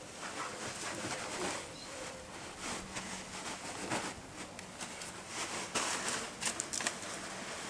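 Two dogs, an Australian kelpie and a beagle, play-wrestling on a cushion: scuffling and snuffling noises of bodies and mouths against each other and the fabric, with a few sharp clicks near the end.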